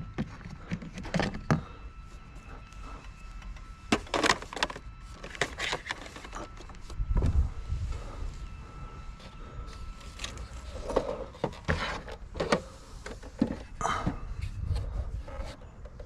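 Scattered knocks, clinks and clatters of junk being handled and shifted, with a few low rumbles.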